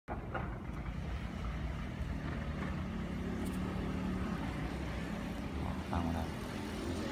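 Steady low rumble of street traffic, with a faint engine hum.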